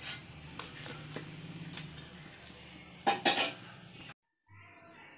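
Steel slotted spoon clinking and scraping against an aluminium kadai while fried chilli fritters are lifted out of the oil. There are scattered light clinks, then a louder cluster of metal clinks about three seconds in. The sound cuts off abruptly near the end.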